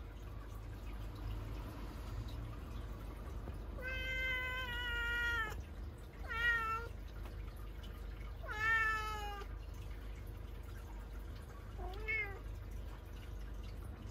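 Ginger tabby domestic cat meowing four times: a long call, a short one, a louder drawn-out one, then a short faint one near the end.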